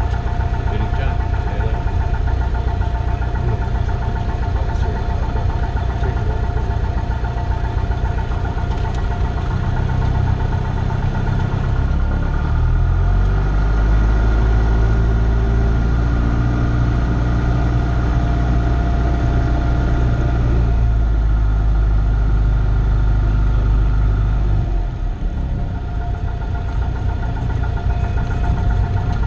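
Cessna 172's piston engine heard from inside the cabin, running at a low setting, then speeding up about ten seconds in, holding at the higher speed for several seconds, and easing back down near the end.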